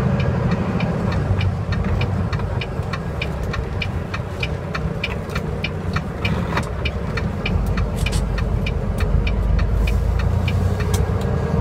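Semi truck's diesel engine running, heard inside the cab, with a turn signal ticking steadily about three times a second as the truck turns at an intersection.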